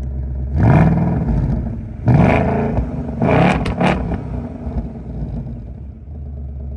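2024 S650 Mustang GT's 5.0 L Coyote V8 through its active valve performance exhaust, revving three quick times on a key-fob remote rev from a steady idle, then settling back to idle.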